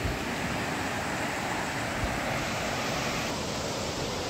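Steady rush of river water running over a shallow, rocky riffle.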